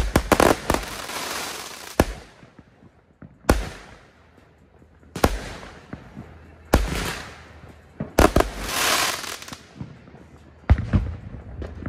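Aerial fireworks bursting overhead: about ten sharp bangs a second or two apart, with quick clusters near the start and about eight seconds in. Several bangs trail off in a hiss as the stars burn out.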